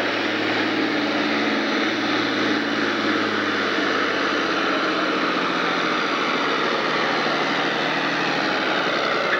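John Deere farm-stock tractor's diesel engine running flat out under heavy load as it drags a weight-transfer sled, a loud steady run with thick black smoke from the stack.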